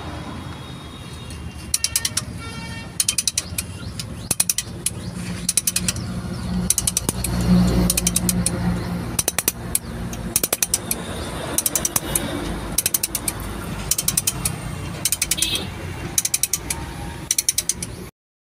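Ratchet wrench clicking in short quick runs about once a second, with a low rumble swelling briefly near the middle: gearbox bolts being tightened on a Leyland truck during a clutch plate change.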